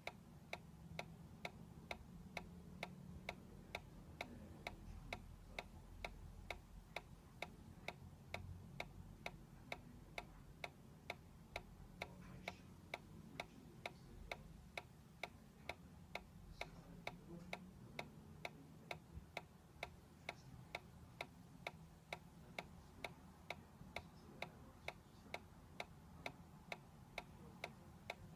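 Solar-powered dancing cactus toy ticking steadily as it sways, its solar-driven rocking mechanism clicking about twice a second.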